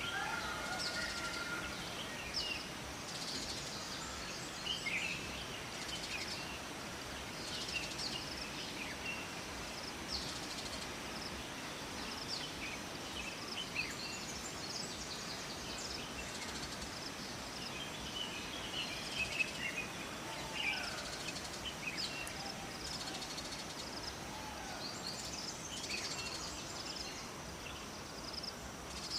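Steady rushing of water in a forest, with many small birds chirping and trilling on and off over it.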